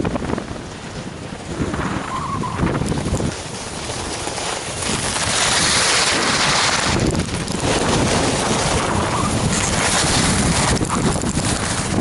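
Wind buffeting the microphone and a rushing hiss of edges sliding on packed snow during a downhill run, growing louder about five seconds in.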